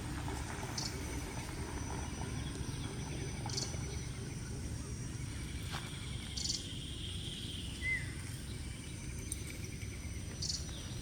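Outdoor rural ambience: insects droning steadily at a high pitch, with a short high chirp repeating about every three seconds and one brief falling call about eight seconds in, over a low steady rumble.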